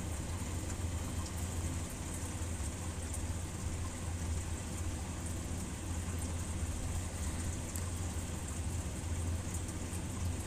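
Steady low hum with a faint hiss, unchanging throughout: background noise under the voiceover recording.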